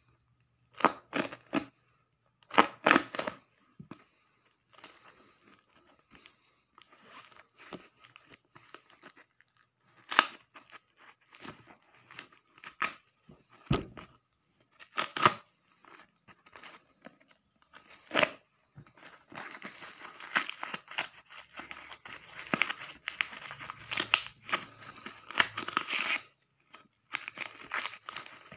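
Clear packing tape and plastic wrapping being peeled and torn off a parcel by hand: separate sharp rips with crinkling between, then, from about twenty seconds in, a busier stretch of crinkling and tearing.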